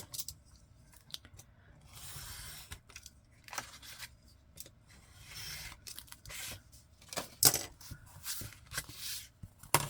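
Paper and card being handled and cut: several short scraping swishes of paper, with a few sharp taps and clicks in between.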